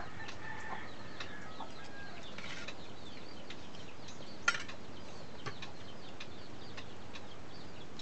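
Birds chirping in quick, high-pitched calls throughout, with a single sharp clink about four and a half seconds in.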